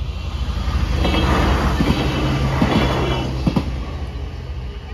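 A LINT 41 diesel multiple unit passes over the level crossing: its running and wheel noise swell up and fade over about three seconds, with a few sharp clacks from the wheels. The crossing's warning bells ring steadily throughout.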